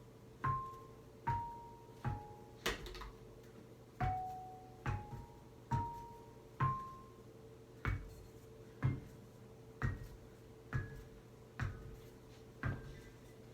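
Xylophone bars struck one note at a time, about one a second, in a slow tune that steps around and then moves higher; each note rings only briefly. One sharper click about a third of the way in.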